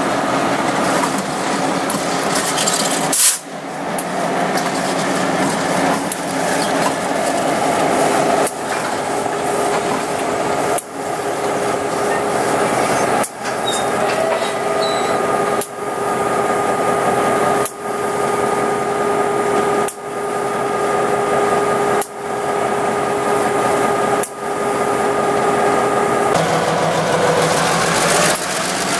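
New England Central end-cab diesel switcher locomotive 2340 running past slowly at close range, its engine running steadily. The sound breaks off briefly about every two seconds.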